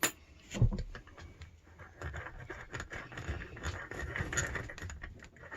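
Handling noise of a small brass padlock and lock-picking tools. A sharp click at the start and a knock just after, then a few seconds of rustling and scraping dotted with light metal clicks.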